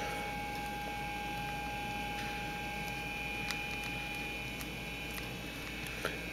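Steady electrical hum over quiet room noise, with a faint tick about three and a half seconds in and another near the end as the baitcasting reel's side-plate knob is handled.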